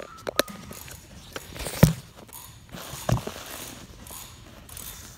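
Clanks and knocks as a large fan machine is handled and worked on, with a loud knock about two seconds in and another about a second later.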